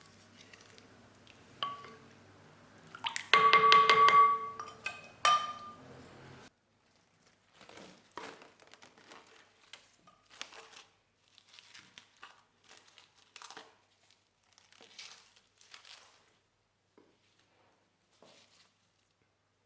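A utensil clinking and ringing against a bowl twice, the first ring lasting about a second, followed by scattered light scraping and rustling sounds of kitchen handling.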